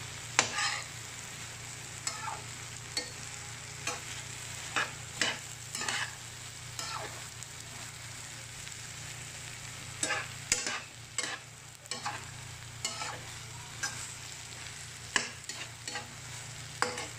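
Sautéed bitter melon, tomato and egg sizzling steadily in a metal frying pan while a slotted metal spatula stirs it. The spatula scrapes and taps against the pan at irregular moments.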